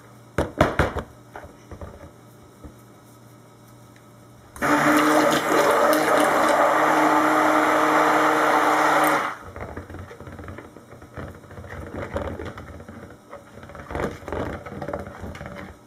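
Cuisinart stick blender running in a bowl of melted soap oils with kaolin clay and colloidal oatmeal, premixing them before the lye goes in. It starts about four and a half seconds in, runs steadily for about five seconds and cuts off sharply. A few sharp knocks come before it and lighter clatter after.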